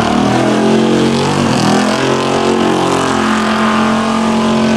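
Muscle car's V8 engine accelerating hard, its pitch climbing over the first two seconds and then holding steady at high revs.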